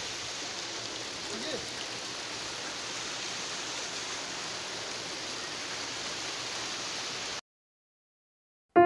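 Rows of small garden fountain jets splashing into a long shallow pool, a steady even splashing that cuts off suddenly about seven and a half seconds in.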